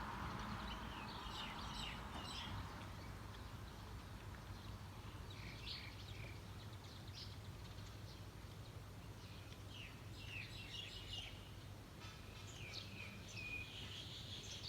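Small birds chirping faintly in scattered short bursts, a cluster every few seconds, over a steady low hum.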